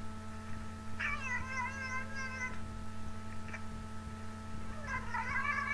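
Tabby cat meowing: two long, wavering meows, one starting about a second in and another near the end.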